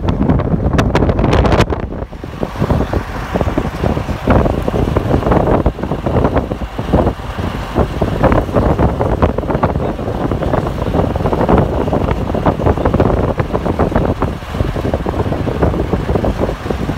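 Wind buffeting the microphone through the open window of a moving vehicle, over the rumble of its engine and tyres on the road. A few sharp clicks in the first two seconds.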